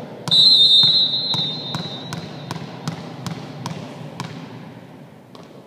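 A referee's whistle blows once, held about two seconds, then a volleyball bounces on the hard gym floor about three times a second, the bounces thinning out near the end.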